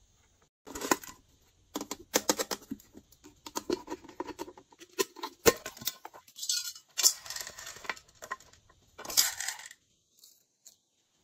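Small hard slime add-ins clinking and rattling as they are tipped into a container: irregular clicks and short rattles with brief pauses between them.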